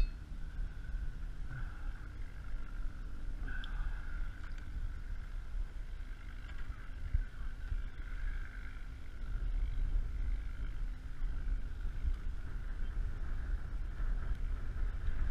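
Wind buffeting the microphone with a steady low rumble, over a faint, steady high-pitched whine, with a few light knocks.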